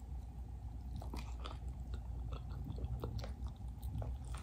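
Biting into and chewing a hot dog topped with crunchy potato chips: a string of small crunches and mouth sounds.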